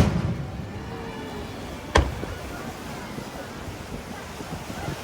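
Fireworks shells bursting overhead: a loud boom right at the start and a second one about two seconds in, each followed by a rumbling tail, over the murmur of a crowd.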